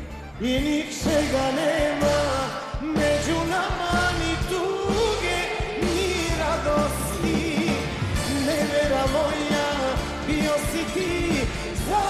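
Live band playing a Balkan folk-pop song: drum kit and percussion with a melody line and singing.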